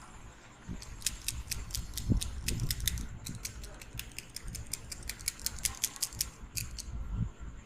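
Quick, irregular sharp clicks, several a second, with a few soft low thumps beneath them.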